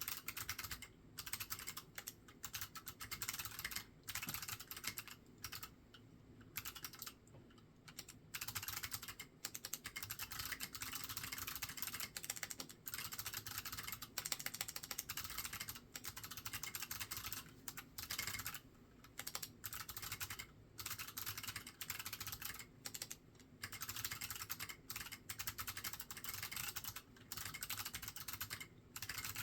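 Typing on a custom keyboard fitted with SMK second-generation clicky switches on MX mounts and MT3 keycaps: fast runs of clicky keystrokes broken by short pauses.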